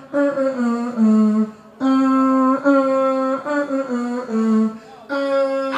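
A performer's voice over the stage PA humming a tune in short held notes that step up and down in pitch, with brief breaks between phrases, as part of a live beatbox turn.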